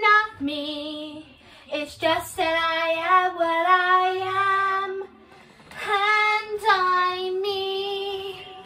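A high female singing voice holding long notes without words, in three phrases: a short one at the start, then two long held notes, with little accompaniment.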